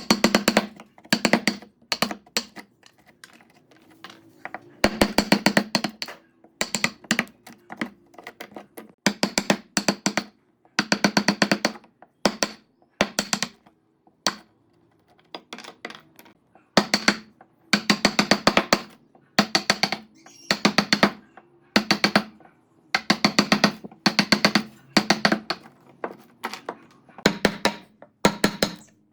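Bursts of rapid knocking on wood, a quick run of sharp strikes in each burst, with the struck wood ringing under the blows.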